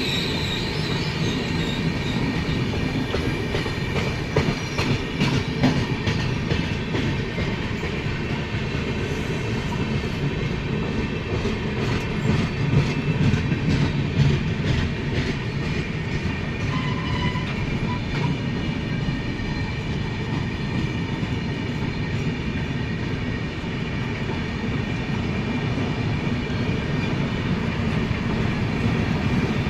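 An Indian Railways passenger train running past at speed, its wheels rumbling steadily on the rails. Repeated clicks of the wheels crossing rail joints come through, most marked in the first half.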